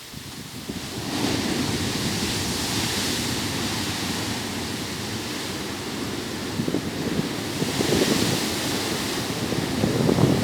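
Ocean waves breaking on a beach: the surf swells in about a second in and again around eight seconds, with wind buffeting the microphone.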